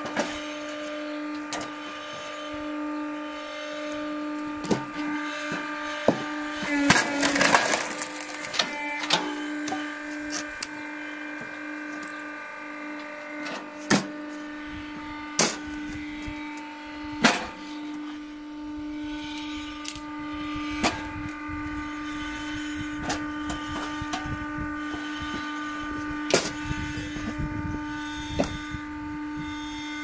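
Log splitter's motor running with a steady hum while the ram pushes a log onto the wedge, the wood cracking and splitting in a burst of cracks about seven to eight seconds in, then in single sharp cracks now and then.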